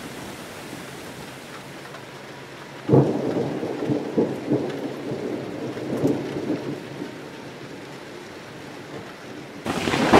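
Rain and thunder: a steady hiss of rain, broken about three seconds in by a sudden crackling thunderclap that rumbles and fades over a few seconds, and another loud clap starts near the end.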